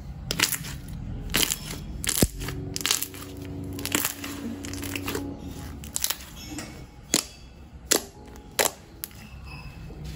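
White slime being squished, stretched and poked by hand, giving irregular sharp sticky pops and clicks.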